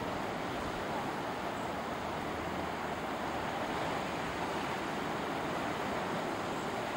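Ocean surf breaking and washing over rocks along a cobble shore, a steady rushing with no distinct separate events.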